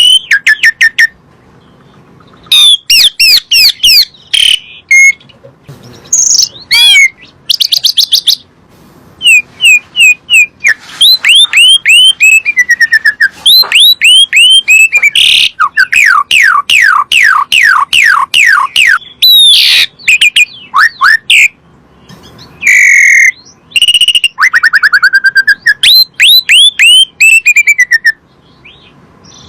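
Asian pied starling (jalak suren) singing: loud, rapid trains of falling whistled notes and chirps, broken by short pauses.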